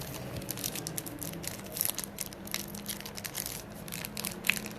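Wrapper of a Panini Limited basketball card pack crinkling and tearing as it is opened, in a run of irregular crackles.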